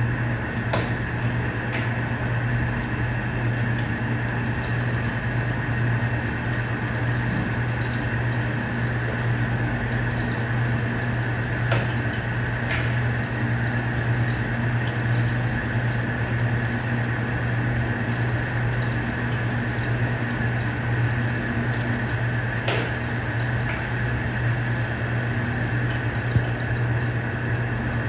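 Electrolux LPE16 washing machine running mid-wash: a steady low motor hum under the rush and churn of water, with a few light clicks.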